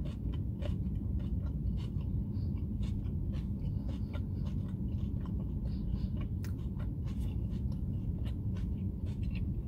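A person chewing a mouthful of pizza with crisp capsicum and onion topping: a run of small crunchy clicks over a steady low hum.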